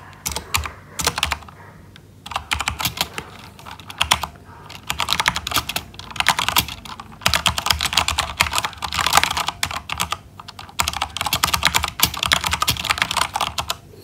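Fast typing on a mechanical keyboard fitted with G.Skill Crystal Crown translucent keycaps: rapid runs of key clacks broken by a few brief pauses.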